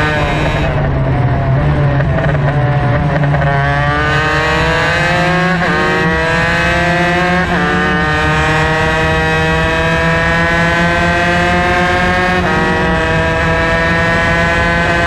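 Two-stroke superkart engine at racing speed, heard from on board. Over the first few seconds it falls in pitch as the kart slows for a corner. It then climbs under full throttle, with a sudden drop in pitch at about six, seven and a half and twelve and a half seconds as it shifts up through the gears.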